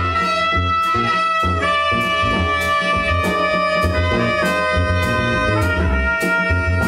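Free-improvised jazz from a small band: a saxophone holds long notes that step to new pitches, over electric bass and a drum kit keeping a regular cymbal pulse.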